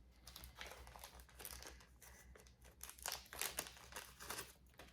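Crinkling and rustling of packaging being handled, in a string of short irregular rustles that grow stronger about three seconds in.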